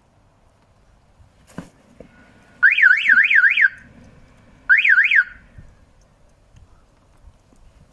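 Electronic warbling alarm of an inflatable bird-scaring mannequin: a sharp click, then two bursts of a fast rising-and-falling tone, about four to five sweeps a second, the first about a second long and the second shorter.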